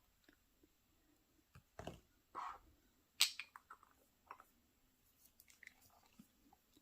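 Small handling sounds of a fountain pen and ink bottle: a couple of soft knocks, a sharp click about three seconds in, then a few light taps.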